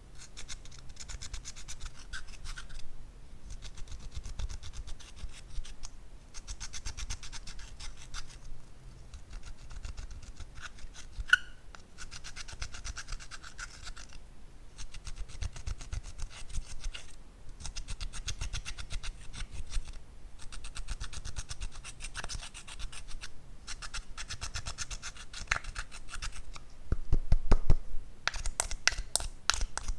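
Pressed-powder eyeshadow being scraped out of a plastic palette's pans with a pointed tool: rapid scratching in spells of a second or two, with short pauses between. A few louder knocks near the end.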